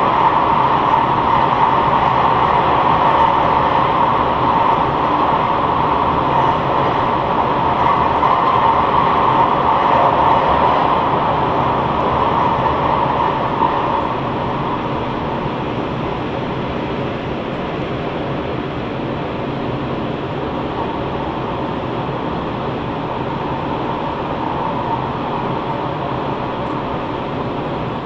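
Steady, loud running noise of a moving vehicle, without pauses, easing off a little about halfway through.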